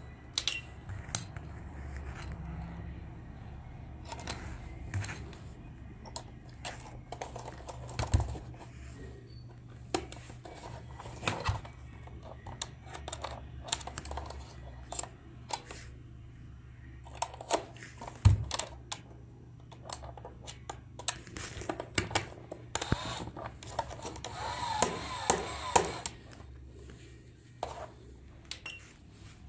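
Plastic clicks and knocks of a toy coin bank being handled, with crocodile-clip test leads being clipped onto its battery contacts and buttons pressed on a bench power supply, over a steady low hum. About three-quarters of the way through comes a short, louder stretch of noise with a wavering tone.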